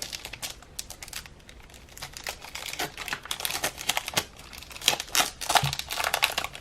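Packaging being crinkled and handled as a mail order is unwrapped: irregular crackling that gets busier and louder about halfway through.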